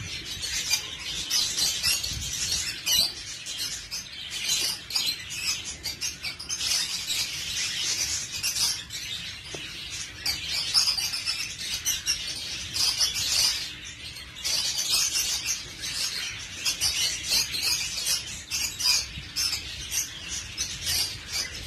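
Many small birds chirping continuously.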